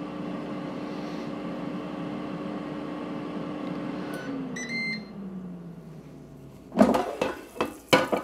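Ninja air fryer's fan running with a steady hum until its timer runs out about four seconds in. It gives a few short beeps to signal that the cycle is done, and the fan winds down with a falling pitch. Near the end the basket is pulled out of the fryer with a clatter.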